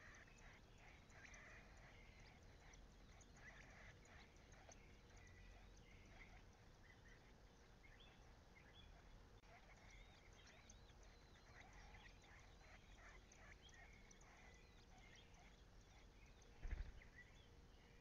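Nestlings begging at the nest with rapid, faint, high chirps while an adult bird feeds them. A single soft thump sounds near the end.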